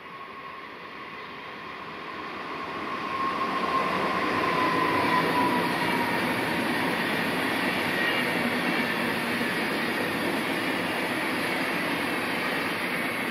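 A train passing at high speed. A rushing noise builds over the first few seconds, holds for about ten seconds as the carriages go by, and begins to fade near the end. A whistling tone drops slightly in pitch as the train passes.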